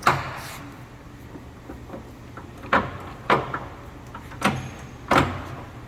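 Speed-change levers on a Mori Seiki gap-bed engine lathe being shifted, giving five sharp metallic clunks over a steady low hum.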